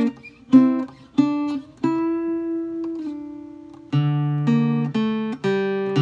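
Guitar music: four separate plucked chords about half a second apart, the last one left to ring and fade, then a fuller strummed part with low notes comes in about four seconds in.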